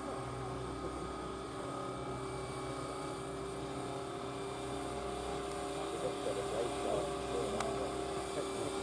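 Radio-controlled scale model helicopter running, a steady whine with an unchanging pitch from its engine and rotors.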